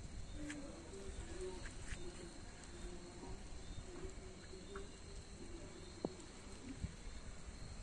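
Night insects trilling steadily at a high pitch, with short low calls repeating about once or twice a second underneath, and a low rumble.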